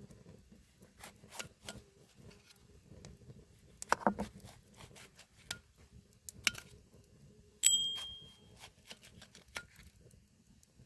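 Cookware and utensils being handled: scattered light clicks and knocks, a short cluster of louder knocks about four seconds in, and one sharp metal clink a little later that rings for about a second.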